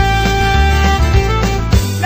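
Instrumental passage of a band-played football fan chant song: sustained tones over a regular beat, with no singing.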